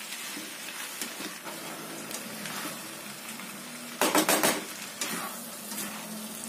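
Flat rice noodles stir-frying in a pan, sizzling steadily while a spatula scrapes and turns them. About four seconds in comes a brief, loud burst of metal clattering against the pan.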